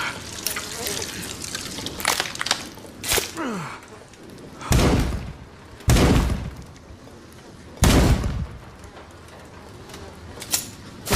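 Sniper rifle shot sound effect: three loud, deep shots, the second about a second after the first and the third about two seconds later, each dying away over half a second or so. A few smaller sharp clicks come before and after.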